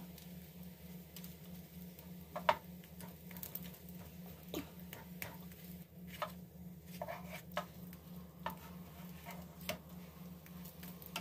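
Wooden spatula scraping and tapping on a nonstick griddle as quesadillas are lifted and turned: a handful of faint, short scrapes and taps, the loudest about two and a half seconds in, over a steady low hum.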